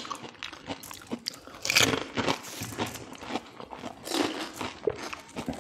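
Crisp panipuri (golgappa) shells filled with spiced water being bitten and chewed, in irregular crunching and crackling close to the microphone.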